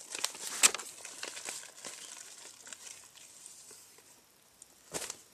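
Plastic packaging crinkling and rustling as it is handled, with a sharp crackle about a second in and another short one near the end.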